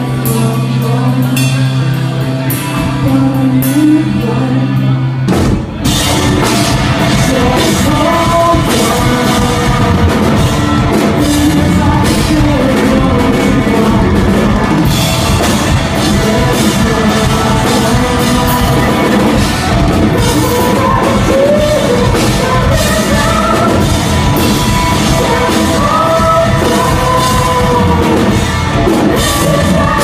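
Rock band playing live: a quieter passage with a sustained low bass note, then about five seconds in the drums and full band come in, with a singer's vocal line over the top.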